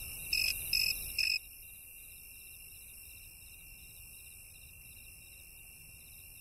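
Crickets chirping at night: three louder chirps in the first second and a half, then a steady, softer trilling chorus.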